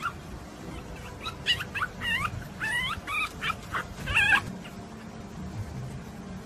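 Dog whining and yipping: a run of short, high-pitched cries over about three seconds, then it stops.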